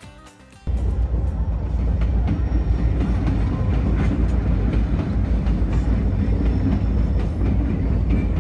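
A vehicle running with a loud, steady low rumble of engine and road noise, starting abruptly about a second in.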